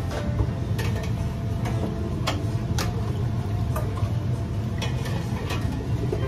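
Metal ladle knocking and scraping against a wok, a sharp clink every half-second to second or so, over a steady low hum of kitchen ventilation and burner.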